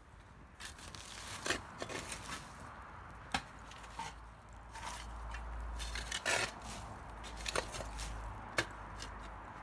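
Irregular sharp snaps and knocks of wood, about a dozen scattered unevenly, over a faint hiss.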